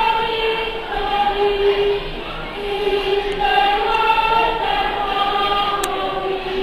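A chorus of school pupils singing a slow farewell song, a single melody of long held notes. A small click sounds near the end.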